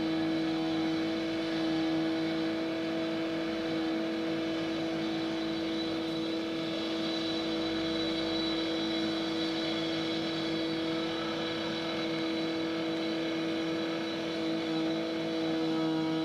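Road-construction machine running steadily at constant speed: a steady mechanical whine.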